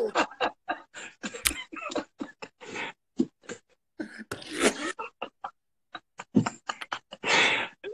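Two men laughing hard over a video call, the laughter broken into short choppy bursts with abrupt dropouts and a brief silence a little past the middle.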